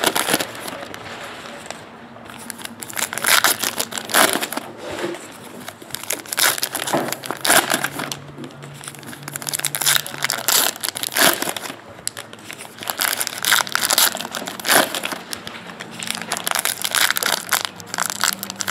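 Trading card pack wrappers being torn open and crinkled, in repeated irregular bursts of crackling.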